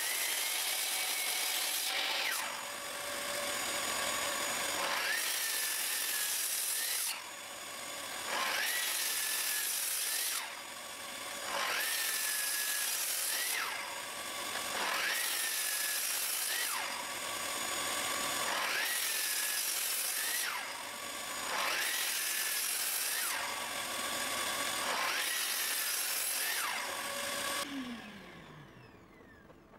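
Sliding compound miter saw cutting an oak board again and again, making a row of closely spaced shallow cuts. Each cut comes roughly every two seconds, and the motor pitch dips as the blade bites and then recovers. Near the end the saw is switched off and the blade spins down.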